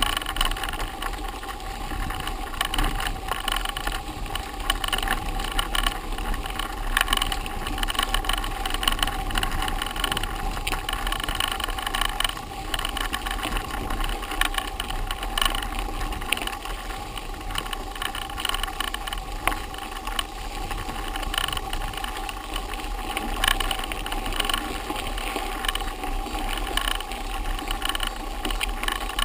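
Mountain bike rolling over a rough dirt forest road: tyre noise with frequent small knocks and rattles from the bike and camera mount over bumps.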